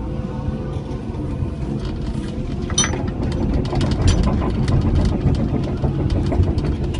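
Cat 312E L excavator's diesel engine running steadily while its Herder mowing bucket cuts through reeds in the stream. From about two and a half seconds in, a run of sharp clicks and clatter rides over the engine.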